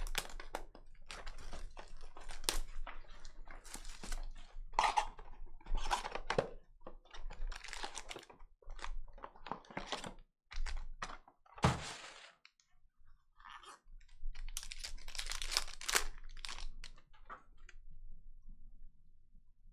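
Hands handling a cardboard Panini Mosaic basketball hobby box and tearing open its foil card packs: irregular crinkling and tearing of foil wrappers and cardboard. There is one dull thump a little past the middle, and a denser run of foil crinkling a few seconds later.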